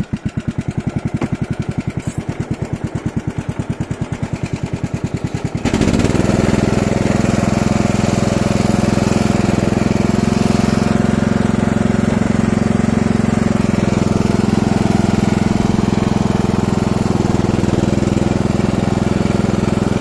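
Ride-on lawn mower tractor's small petrol engine, just started: idling with a fast, even chugging for about six seconds, then revved up to a louder, steady run.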